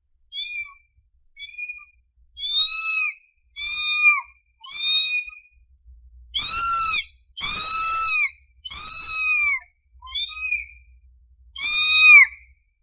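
Young kitten meowing: about ten high-pitched calls in a row, each rising and falling in pitch, the loudest and longest in the middle. These are the calls of a hungry kitten crying for its mother.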